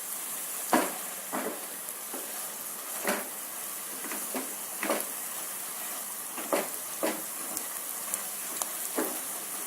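Spiced grated coconut (serundeng) frying in a little oil, a steady sizzle, with a spatula stirring it in short scrapes every second or two; it is being fried until crisp.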